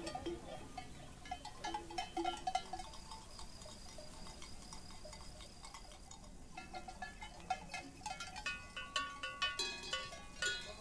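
Bells worn by a flock of sheep clanking and tinkling irregularly as the animals move and graze, growing busier and louder near the end.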